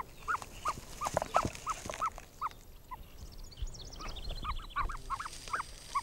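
Newly hatched ostrich chicks peeping: short, separate rising-and-falling calls, about three a second, with a quick run of fainter, higher chirps about halfway through.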